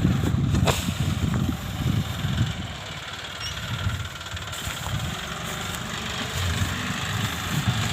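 John Deere 5050D tractor's turbocharged diesel engine running while ploughing, a low rumble that is louder in the first second and then drops back to a steadier, lower level.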